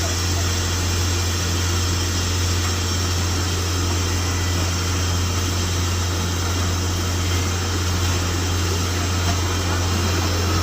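Borewell drilling rig running steadily, with a strong low hum under an even machine noise.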